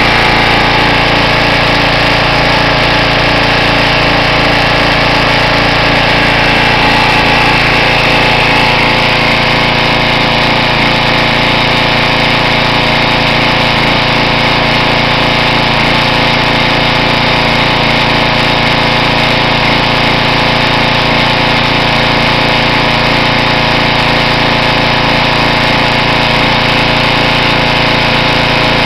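Small gasoline engine of a Simoniz 2350 PSI pressure washer running steadily and loudly on its first run after winter storage.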